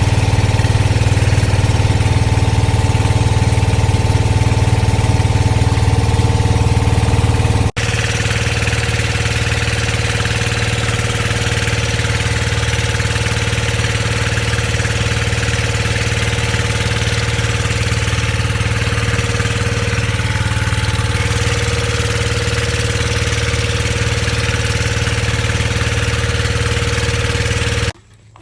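Vehicle engine running steadily, a loud low drone with a constant pitch. There is a short break about eight seconds in, after which the same drone carries on unchanged.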